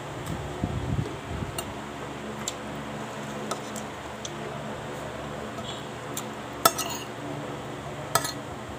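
Metal cutlery clinking and scraping against a plate of rice and vegetables as food is scooped up: a handful of sharp clinks spread out, the loudest about two-thirds of the way through. A few low thuds come in the first second or so.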